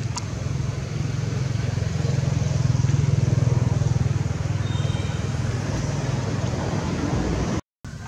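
A motor vehicle's engine running, growing louder to a peak about three seconds in and then slowly fading. The sound drops out briefly near the end.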